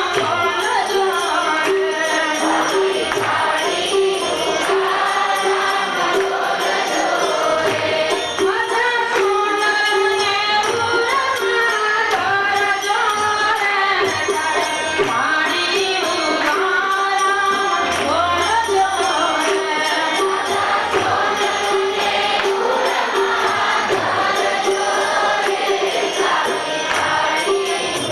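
Gujarati devotional song (bhajan) sung over a steady held drone note, with jingling percussion.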